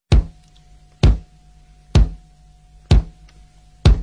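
Background music opening on a slow, steady drum beat: five hits a little under a second apart over a faint held tone.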